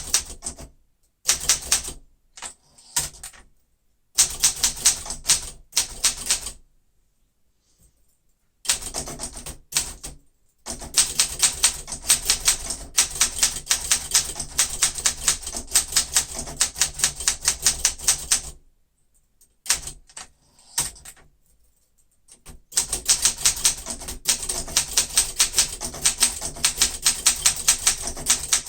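1972 Olympia SM9 manual typewriter being typed on: rapid runs of typebar strikes, several a second, broken by short pauses.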